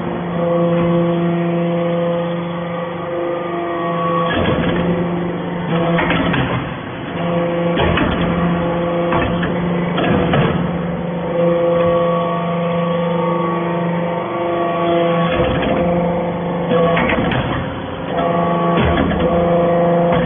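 Hydraulic copper-chip briquetting press running: a steady pitched hum that drops out and returns every few seconds, with irregular metallic knocks.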